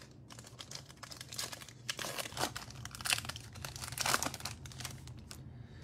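Foil wrapper of a Donruss Optic basketball card pack being torn open and crinkled by hand: a run of irregular crackles, loudest in the middle.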